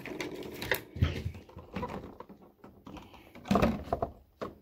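Stiff clear plastic packaging and a plastic figure being handled: a run of irregular clicks, taps and crinkles as the cover is moved aside and the figure on its base is lifted out.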